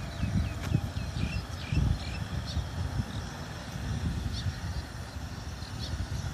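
Birds chirping in short, quick calls, repeated many times, over low rumbling buffeting of wind on the microphone.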